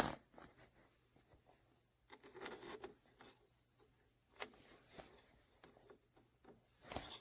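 Faint rubbing and light scratchy handling noises, a few short spells of them, as hands handle the 3D printer and its cables.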